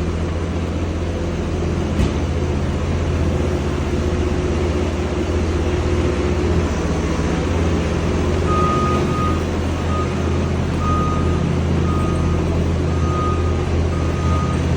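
Skid steer's diesel engine running steadily, with a reversing alarm beeping about once a second from a little past halfway. A single sharp knock about two seconds in.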